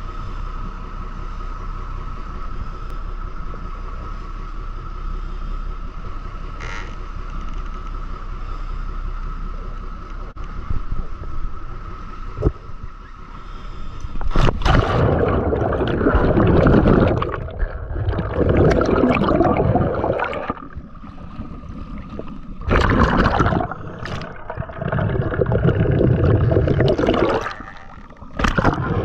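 A steady drone with a constant high whine, then from about halfway on loud, irregular surges of water splashing and sloshing against the camera at the sea surface, with short breaks between them.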